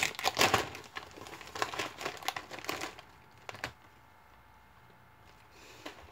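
Clear plastic snack bag crinkling as it is handled for about three seconds, then much quieter, with a single click a little past the middle.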